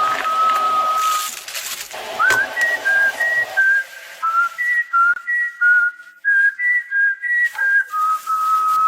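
A tune whistled in short, clear notes stepping between a few pitches, some held longer. A hissing noise runs under it at the start and again briefly about two seconds in.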